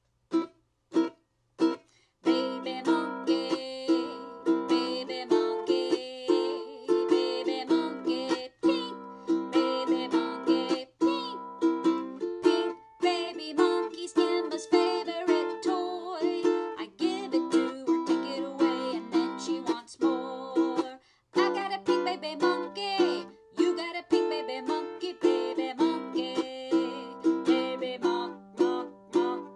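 Ukulele strummed in a steady rhythm, playing a blues. Three single strums come first, then continuous chord strumming from about two seconds in.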